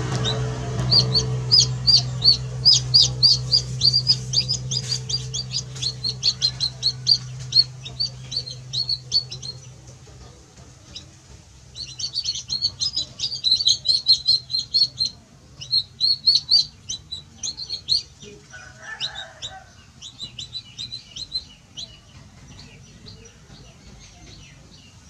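Young chicks peeping: rapid runs of short, high peeps, with a brief lull a little before the middle and another dense run just after it, thinning out toward the end.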